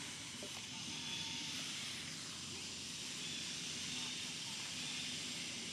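Steady outdoor ambience: an even, high-pitched hiss, with faint, indistinct voices in the background.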